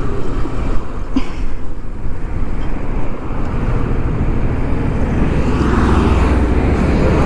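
Road traffic noise: vehicle engines running in a jammed road, a dense low rumble that grows a little louder in the last couple of seconds, with one brief knock about a second in.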